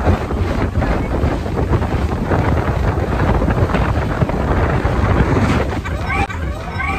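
Strong wind buffeting the phone's microphone on a moving boat at sea, over the rush of the boat and the water.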